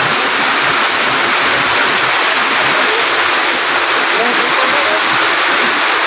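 Waterfall pouring into a pool: a steady rush of falling water that does not let up, with faint voices under it.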